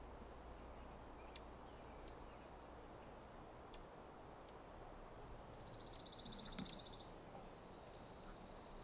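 Faint outdoor ambience at a wooded pond. A high buzzy trill sounds briefly about two seconds in, then again longer and louder around six seconds, ending in a thin rising note, with a few sharp ticks between.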